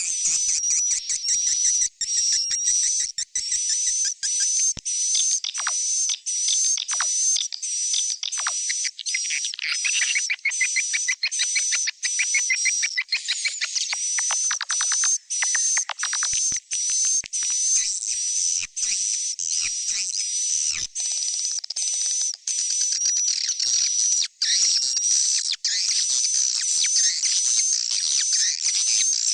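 Swiftlet lure recording of chick calls, the sound played in swiftlet houses to draw birds in to roost and nest. It is a dense, continuous run of rapid high-pitched twittering chirps over a steady wavering whistle.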